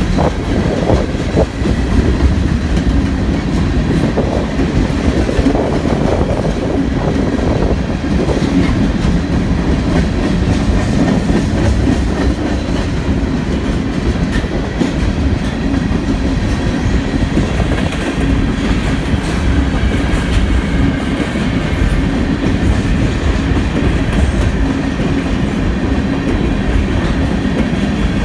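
Canadian National freight train of covered hopper cars rolling past steadily, a continuous noise of steel wheels on the rails.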